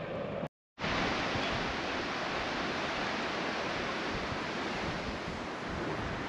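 Steady wind rushing over the microphone outdoors, with gusty low rumble, broken by a brief drop to silence about half a second in.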